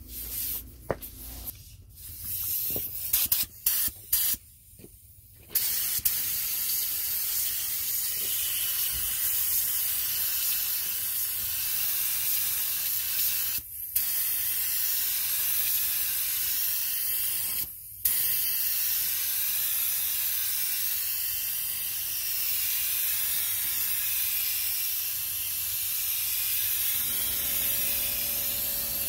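Compressed-air gravity-feed spray gun spraying high-build primer. A few short bursts of spray come first, then a steady hiss, broken twice by brief stops. A low steady hum joins near the end.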